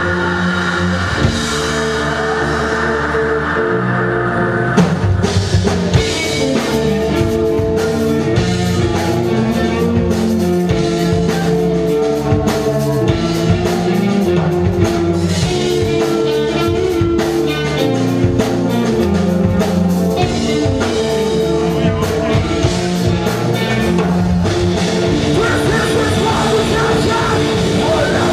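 Metalcore band playing live: distorted electric guitars and bass holding chords, with the drum kit coming in hard about five seconds in and driving a fast, dense beat. Vocals join near the end.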